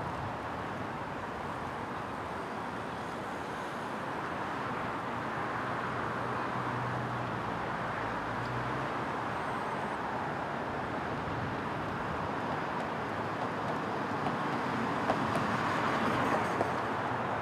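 Steady rush of road noise as a large pack of road bicycles rides past on asphalt, swelling a little near the end. A low engine hum runs for a few seconds in the middle, and a few light clicks come near the end.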